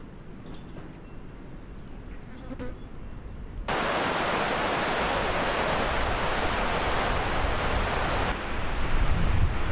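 Quiet pasture ambience with a few faint sounds. Then, cutting in suddenly about four seconds in, the loud, steady rush of the fast-flowing Alazani River over its stony bed. Near the end the rush thins and a low wind rumble on the microphone takes over.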